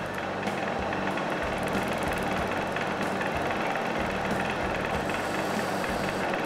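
Wood lathe running steadily with a large wooden blank spinning on it, no tool cutting.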